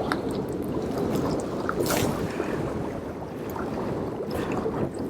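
Sea water washing and gurgling around shoreline rocks, a steady rushing with a few short splashes, the strongest about two seconds in, mixed with wind on the microphone.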